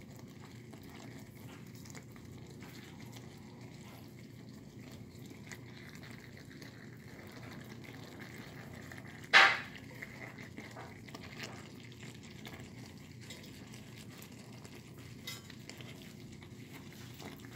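Thick caldereta sauce simmering in a cast iron skillet, a steady low bubbling with small pops. About nine seconds in comes one sharp clink against the pan, the loudest sound.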